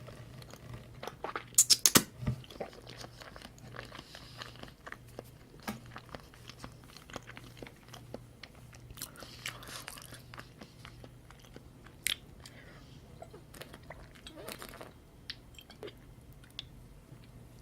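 Close-miked chewing of raw salmon and salmon rolls: wet mouth clicks and smacks, with a quick run of louder clicks about two seconds in.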